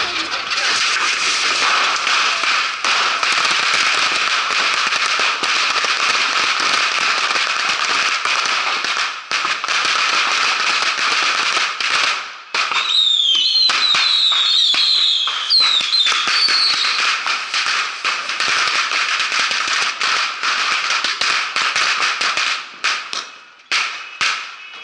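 A dense, continuous barrage of bottle rockets fired en masse, hissing and crackling. A few high whistles come about halfway through. The barrage thins to separate sharp cracks near the end.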